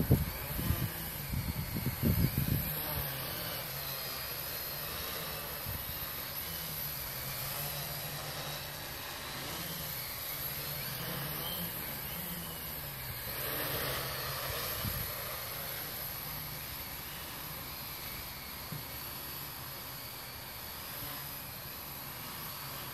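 Home-built quadcopter's electric motors and propellers buzzing as it flies, the pitch wavering up and down with the throttle. Low wind-like rumbles on the microphone in the first few seconds.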